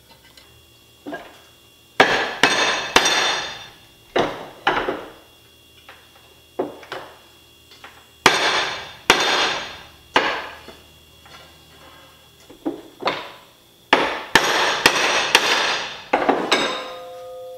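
Hammer blows striking metal on an anvil, about twenty in irregular clusters, each ringing briefly: crimping a cable loop flat.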